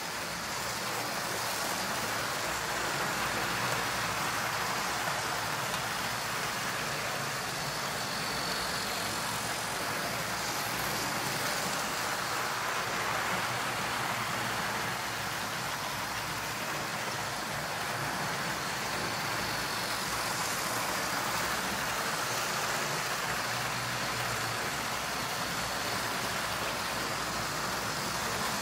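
Model trains running on a model railway layout: a steady whirr of small electric motors and wheels rolling on the rails.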